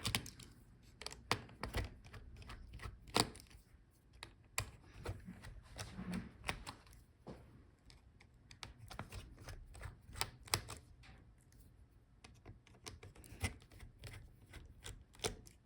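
Scattered, irregular light clicks and taps of a screwdriver undoing the screen hinge screws of a laptop.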